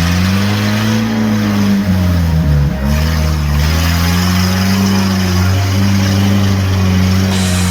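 Off-road 4x4 engine revving: the revs climb, dip briefly about two and a half seconds in, then hold steady and high.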